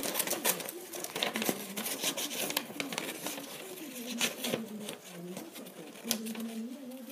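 Scissors snipping through paper in quick, irregular cuts, while a person hums a wandering tune.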